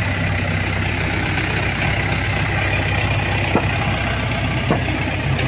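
Diesel engine of an Indo Power-16 pick-and-carry mobile crane running steadily at low revs while it holds and lifts a load, with two brief clicks in the second half.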